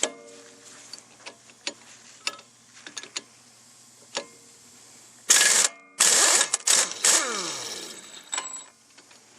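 Scattered light clicks of tools and a socket being handled, then, about five seconds in, a power wrench run in two loud bursts on a rusted 36 mm front axle nut, its motor falling in pitch as it winds down afterwards.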